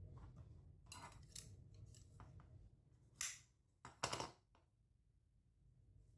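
A few short scraping strokes, the two loudest about three and four seconds in.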